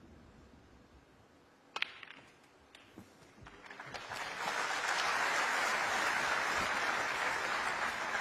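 Snooker balls clicking: a sharp cue-ball strike about two seconds in, then a couple of lighter ball knocks. Audience applause then swells up and holds, the loudest sound.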